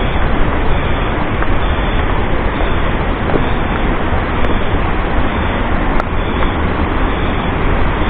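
Steady, loud rush of a waterfall: falling water with no breaks or distinct events.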